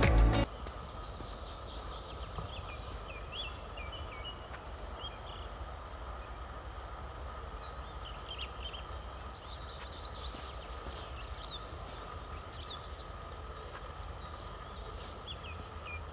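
Music cuts off abruptly about half a second in, leaving open-air ambience: songbirds chirping and calling over a steady low rumble.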